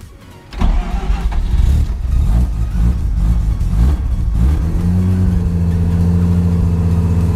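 Mazda RX-7 rotary engine cranked and catching on a cold start after sitting about a month. It fires raggedly and unevenly at first, then a few seconds in picks up and settles into a steady, even idle.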